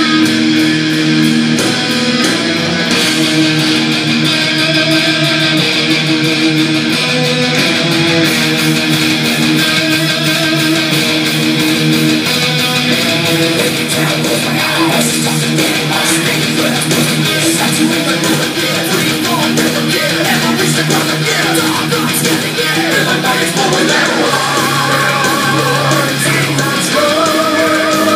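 Heavy metal track with distorted electric guitars played loud through a hi-fi system's B&W floor-standing loudspeakers, picked up in the listening room.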